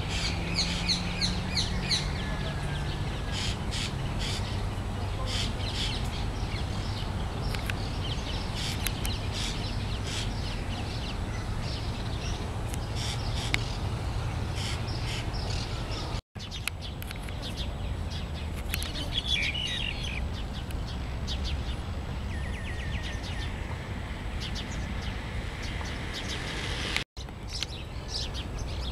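Black-capped Eurasian jays calling, with many short bird chirps over a steady low background hum. The sound drops out briefly twice.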